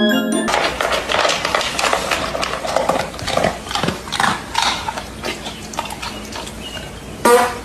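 Animal noises with irregular knocking and clattering, and a brief loud pitched cry near the end.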